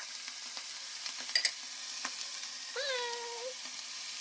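Canned tuna and mushrooms sizzling in a frying pan with a steady hiss, and a utensil clicking against the pan about a second and a half in. A short pitched call sounds near the three-second mark.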